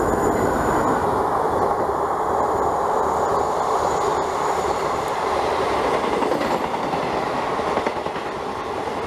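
Indian Railways passenger coaches passing at speed on the near track: a loud, steady rumble of wheels running on the rails.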